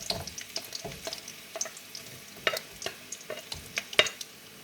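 Onions sizzling in hot oil in a pan while a utensil stirs them, clicking and knocking against the pan many times; two louder knocks come about halfway and near the end.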